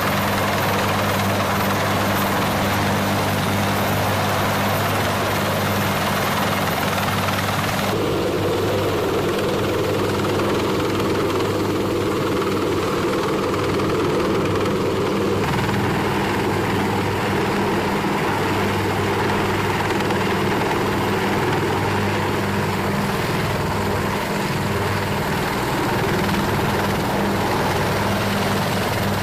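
Marine UH-1Y Venom helicopter hovering overhead: a steady, loud rotor and turbine drone that changes character twice, about eight and fifteen seconds in.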